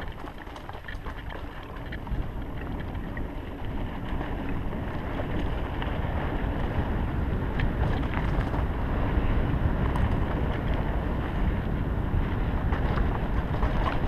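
Mountain bike running fast down a dirt singletrack: wind buffeting the microphone over the rumble of tyres on dirt and leaf litter, with a few scattered clicks and rattles. It grows louder as the speed builds.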